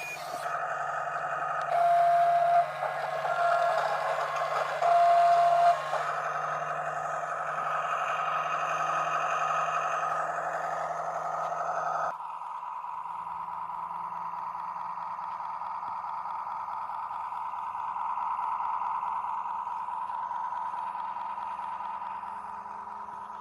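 Huina 1573 RC excavator's small electric motors whining steadily, with three loud, short beeps in the first few seconds. About halfway through, the whine drops to a different steady pitch.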